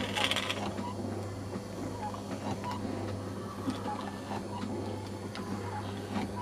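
Steady low mechanical hum with faint, irregular clicks and ticks over it, and a short rustle right at the start.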